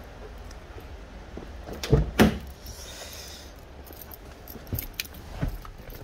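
Car keys jangling as someone climbs into a car's driver seat, with two heavy thumps close together about two seconds in and a few lighter knocks later.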